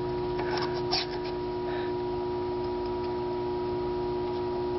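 Faint metal clicks and taps of a new piston being test-fitted by hand into a cylinder bore of a Triumph Spitfire engine block, mostly in the first second or two. A steady hum of several fixed pitches runs beneath it throughout.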